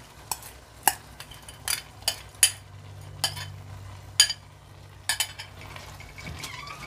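Wooden spatula stirring soaked mung beans into a pot of frying chicken and vegetables. Sharp knocks and scrapes of wood and the glass bowl against the pot come a few times over a light sizzle.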